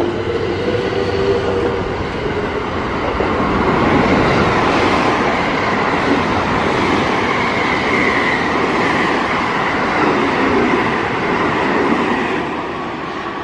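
Electric commuter trains running through a station: a steady rumble of wheels on rail. A motor whine is heard in the first couple of seconds and a higher whine around the middle, and the sound eases off near the end.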